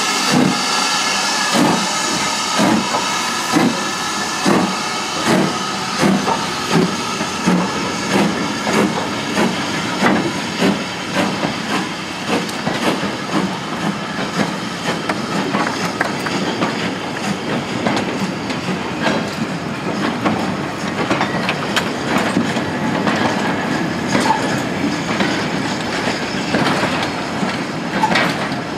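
BR Standard class 4MT tank locomotive No. 80104 working a goods train past: regular steam exhaust beats, about one and a half a second, with hissing steam, fading as the engine goes by, followed by the wagons rolling past with their wheels clicking over the rail joints.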